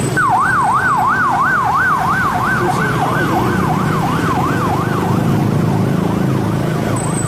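An electronic yelp siren wailing up and down about two and a half times a second, over a steady vehicle engine rumble. The siren fades off over the last couple of seconds.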